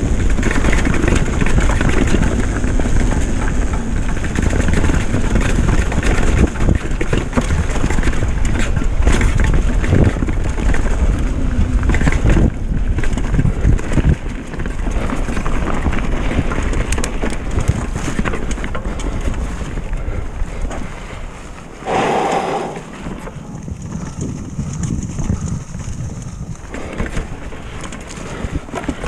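Retro downhill mountain bike riding fast down a leaf-covered dirt trail: tyres rolling over dirt and fallen leaves, with the bike knocking and rattling over bumps and wind on the microphone. The sound eases off somewhat in the last third.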